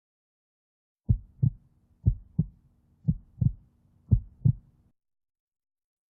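Heartbeat sound effect: four low double thumps, lub-dub, about one pair a second, starting about a second in and stopping after the fourth pair.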